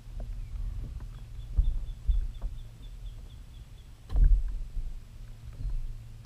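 Low, hollow thumps and knocks on a Pelican Bass Raider plastic kayak as a hooked tilapia is handled in the angler's lap, the loudest about four seconds in. A faint, high chirping, about four notes a second, runs through the first few seconds.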